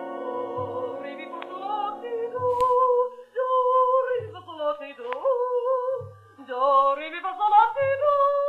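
A woman singing loud, wavering operatic vocal scales that climb and fall in short runs with heavy vibrato, a screeching, out-of-tune voice. A short low note sounds under her about every second and a half, and a held music chord fades out in the first second or two.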